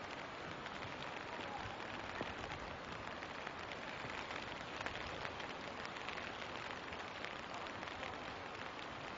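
Rain falling, a steady hiss dotted with many small drop ticks.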